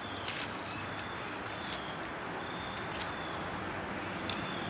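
An insect trills steadily in a high, fast-pulsing tone over an even background hiss, with short chirps now and then and a few faint clicks.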